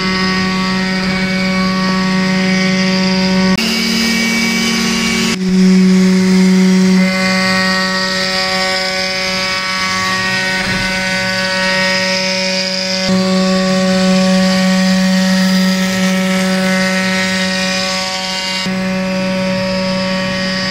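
CNC wood router's spindle running at speed as its bit carves wood: a steady high-speed motor hum with cutting noise, changing abruptly several times.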